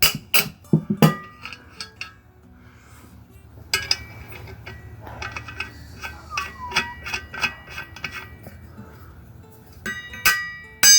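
Metal parts and tools clinking and knocking while a mini bike's axle and wheel are fitted: a few sharp knocks at the start, a run of lighter taps and clinks in the middle, and two loud ringing metal strikes near the end.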